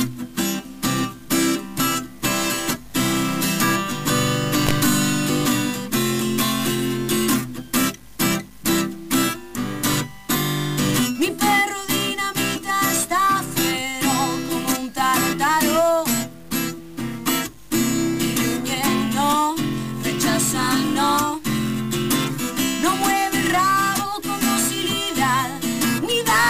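Acoustic guitar strummed live in a choppy rhythm, with short breaks between chords. From about eleven seconds in, a woman's voice sings a melody over it.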